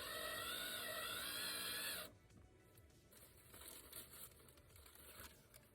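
Background music playing, which cuts off abruptly about two seconds in, leaving faint rustling and handling noises.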